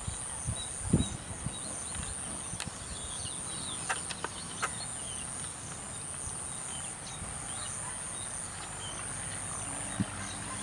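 Outdoor ambience: a steady high-pitched insect drone with faint, scattered chirps of small birds, broken by a few sharp clicks about four seconds in and a low knock near the end.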